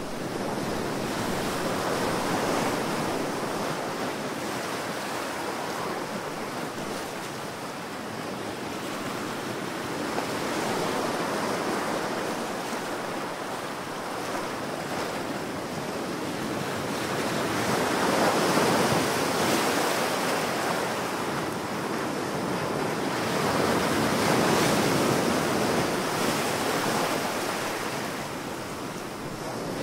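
Ocean surf: waves breaking and washing in, a steady rushing noise that swells and falls back every several seconds, with the biggest surges about two-thirds of the way through.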